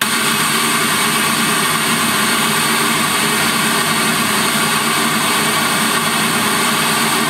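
A 16.5 cm FSD audio Master 165 MG midrange car-audio speaker playing a loud, steady noise test signal for a loudness measurement. The sound cuts in abruptly and holds an even rushing hiss with no rhythm.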